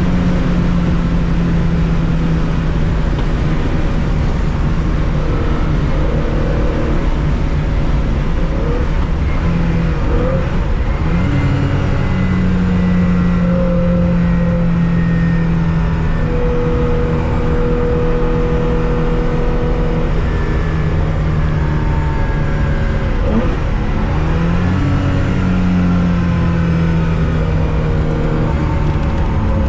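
Air-cooled flat-six engine of a 1965 Porsche 911 2.0 running hard at high revs, heard from inside the car at racing speed. The engine note holds steady for long stretches, and twice (about ten seconds in and again about twenty-three seconds in) its pitch briefly drops and climbs again.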